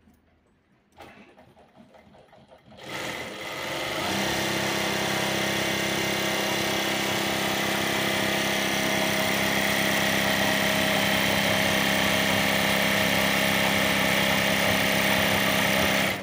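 Mauser Spezial ML8121-E01-BC industrial lockstitch sewing machine running to wind a bobbin on its bobbin winder. A click comes about a second in. The machine starts about three seconds in, comes up to a steady high speed within about a second, runs evenly, and stops abruptly near the end.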